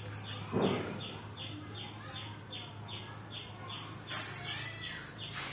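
A bird chirping rapidly: short, high, falling chirps at an even pace of about two to three a second, over a steady low hum.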